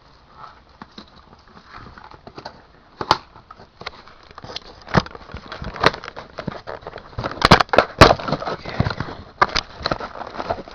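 A product box and its packaging being opened and handled: rustling and crackling with scattered clicks and knocks, the loudest a quick run of sharp knocks about seven and a half seconds in.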